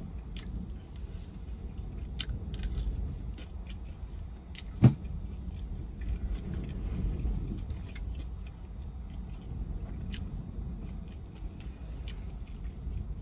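Close-up eating sounds: lemon pepper chicken wings being chewed, with small sharp clicks of mouth and food handling and one loud sharp knock about five seconds in. A steady low rumble of the car cabin runs underneath.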